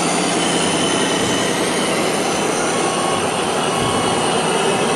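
Steady rushing spray of water washing thick mud off a toy car, with a faint steady whine under it.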